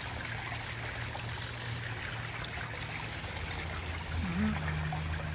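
Water splashing and trickling steadily from a garden pond's fountain spray and small cascading waterfall, with a steady low hum underneath.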